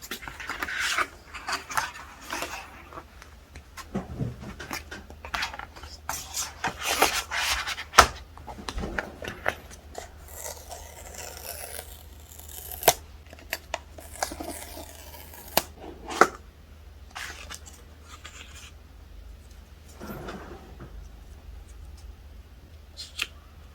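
Cardboard and paper packaging of an Apple Watch Series 7 box being handled and opened: rustling, scraping and tearing with a few sharp clicks and taps, quieter after about two-thirds of the way through.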